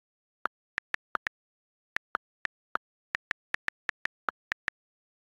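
iPad on-screen keyboard click sounds, one short click per key tap, as a phrase is typed. There are about eighteen clicks in quick, uneven succession, with dead silence between them.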